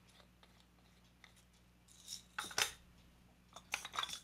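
Light clicks and rattles of small parts and a tool being handled on a workbench, in two short clusters: one about two seconds in and another near the end.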